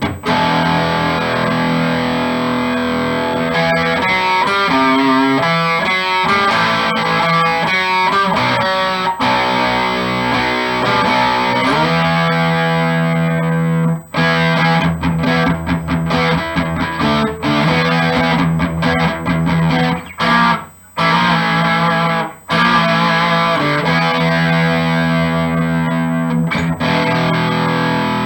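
Electric guitar played on its bridge pickup alone, a Seymour Duncan Little '59 mini humbucker, through an amplifier's overdriven channel with no reverb. It plays distorted chords and riffs, with a few brief breaks about 14 and 21 seconds in.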